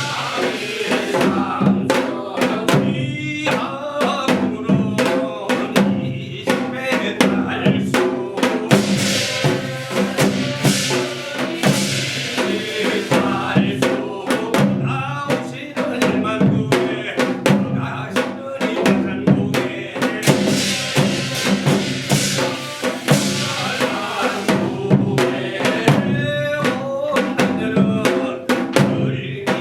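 Live ensemble music from a modern stage version of Hwanghae-do shamanic gut: dense, driving drum strokes over sustained pitched instruments, running without pause.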